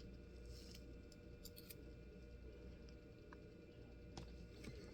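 Near silence: faint room tone with a low hum and a few faint small ticks.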